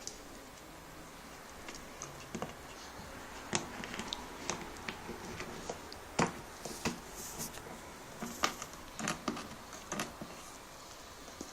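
Akita puppy moving about and playing: irregular clicks, taps and scuffs, few at first and busier from about a third of the way in, with one sharper knock near the middle.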